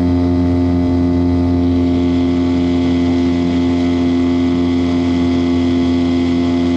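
Small outboard motor running at a steady speed, pushing a small inflatable boat along; one even engine note that holds without rising or falling.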